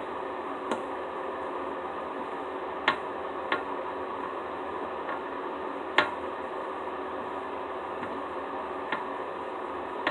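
Perfume spray bottle being pumped onto slime: five short, sharp clicks at uneven intervals, the loudest about six seconds in, over a steady background hiss.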